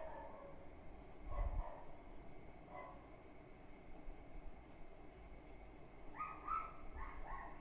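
Faint cricket chirping in a steady, evenly pulsed high trill, with a few soft, indistinct sounds in between.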